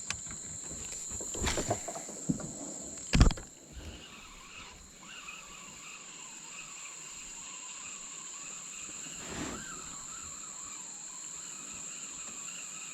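Insects chirring in a steady, high, unbroken drone. A few knocks sound over it, the loudest about three seconds in.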